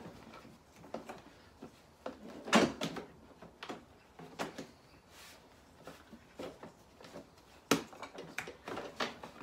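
Green plastic grass box parts of a Bosch Rotak 34-13 lawnmower being handled and snapped together: scattered plastic clicks and knocks, the sharpest about two and a half seconds in and again about three quarters of the way through.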